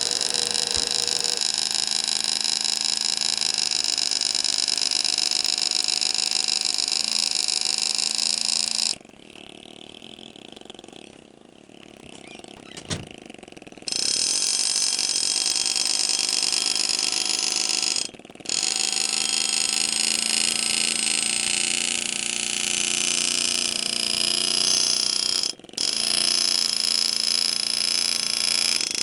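Pneumatic engraving handpiece buzzing as its graver cuts into a shotgun receiver, a steady, high, rapid hammering. It stops for about five seconds about nine seconds in and cuts out briefly twice later.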